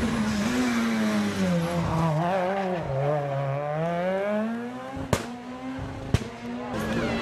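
Rally car engine at high revs. Its pitch drops over the first few seconds, then climbs again as the car accelerates away. Two sharp cracks come about a second apart near the end.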